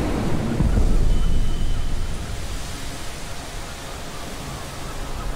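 Heavy ocean surf: a rumbling wash of big breaking waves that swells about a second in, eases off through the middle and builds again near the end.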